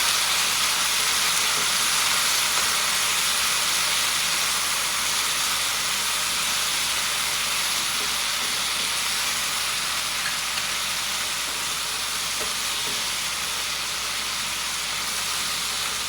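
Crispy chicken, mango and sweet and sour sauce sizzling steadily in a hot stir-fry pan, the sizzle easing slightly over the seconds.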